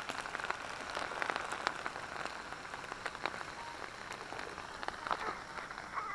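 Sausages and foil-wrapped meat sizzling on a charcoal grill, a steady hiss with many small scattered pops and crackles.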